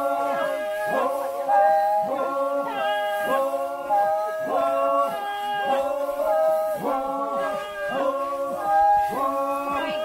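Several men's voices chanting together in a rhythmic work chant. A swooping call repeats about once a second, with held, sliding notes over it.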